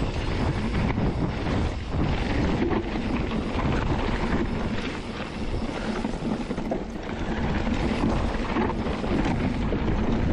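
Wind buffeting the microphone over a continuous rumble and rattle, with many small knocks, from a mountain bike riding over a rough trail.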